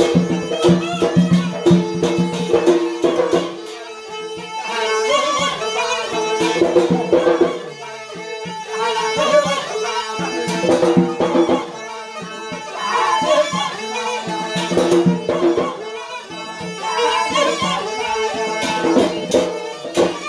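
Yemeni mizmar reed pipe playing a reedy dance melody over rhythmic beats on a metal tray, the music easing off briefly about every four seconds.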